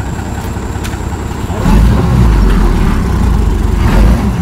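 Heavy truck's engine running, then revving much harder about one and a half seconds in and holding there until near the end, straining as the truck sits sunk in soft ground.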